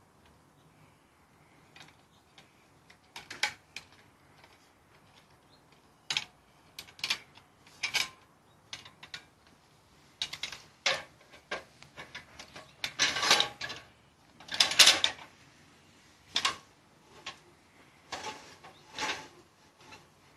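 Metal clicks, clanks and rattles as a metal ladder guard is handled and clamped onto the foot of a metal extension ladder: irregular sharp knocks, loudest in two short rattling clusters about two-thirds of the way through.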